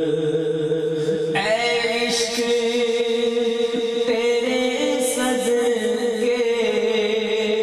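A man singing an Urdu naat through a microphone and PA, his voice entering about a second and a half in and again about four seconds in, over a steady held drone.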